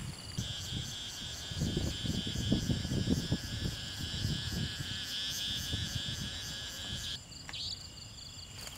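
An insect calling with a high-pitched, pulsing trill of about five pulses a second. The trill starts about half a second in and stops abruptly about seven seconds in. Low rustling in the grass sounds underneath it, loudest two to three seconds in.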